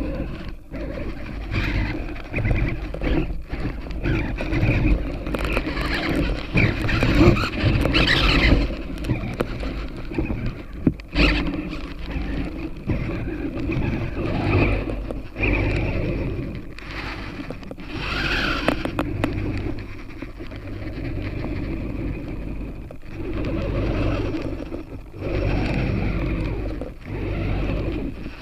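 Hexapod robot walking: its servo motors whine and its legs scrape unevenly as it moves.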